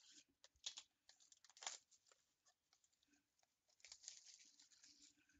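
Faint tearing and crinkling of trading-card packaging being opened: several short rips and rustles, with a longer rustle about four seconds in.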